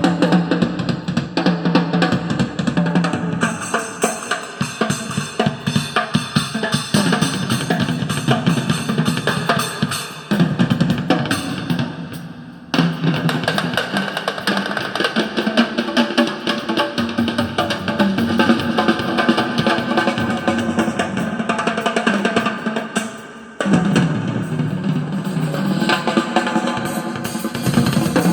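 Drum-heavy music with a steady beat played through a DIY 3-inch full-range speaker driver. The music dips briefly twice, about halfway through and again near the end.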